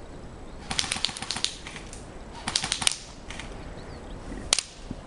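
Airsoft rifle fire: two short bursts of rapid clicking shots, then a single sharp shot near the end.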